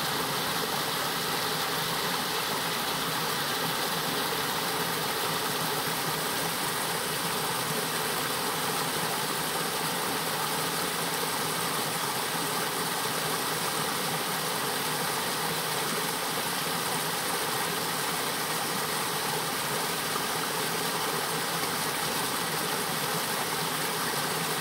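Small creek cascading down a sloping rock slab: a steady rush of falling water.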